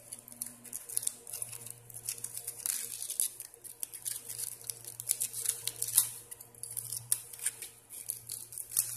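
Aluminium foil being unwrapped and crumpled by hand, crinkling in many short, irregular crackles.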